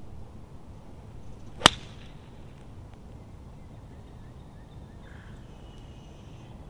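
Pitching wedge striking a golf ball: a faint swish of the swing, then one sharp click of the clubface on the ball about a second and a half in.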